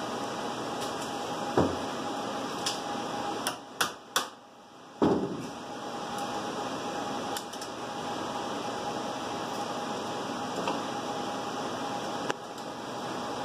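Steady fan and ventilation hum with a faint steady tone, broken by a few light clicks and taps from handling a UPS battery module and multimeter probes. The hum drops away briefly about four seconds in.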